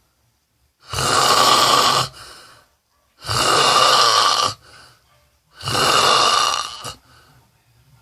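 A person snoring loudly: three long snores, one about every two and a half seconds, each followed by a fainter short tail.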